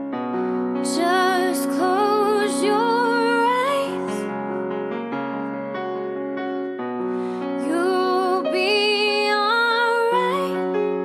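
Slow, tender ballad: a woman singing over sustained piano or keyboard chords, with two sung phrases, one starting about a second in and another about seven and a half seconds in, between stretches of held chords.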